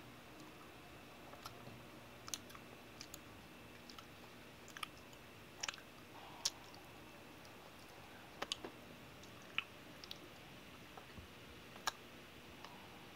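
Person chewing a sticky peanut butter and caramel candy bar with the mouth closed, giving scattered sharp, wet mouth clicks at irregular intervals over quiet room tone.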